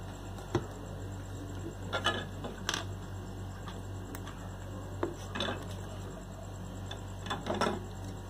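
Rubber mounting grommets being worked into the steel base-plate holes of a refrigerator compressor: a handful of scattered light clicks and knocks, with the loudest cluster near the end, over a steady low hum.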